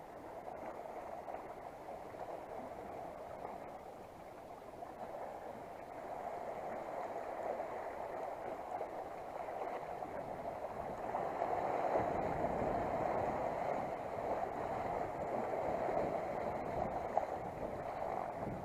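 Sea water washing and splashing against rocks at the foot of a breakwater: a steady rushing that grows louder about a third of the way through.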